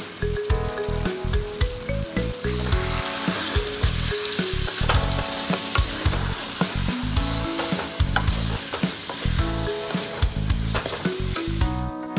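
Chicken in thick masala gravy sizzling and frying in a metal kadai while being stirred with a wooden spatula. The sizzle grows louder about two seconds in. Background music with a melody plays throughout.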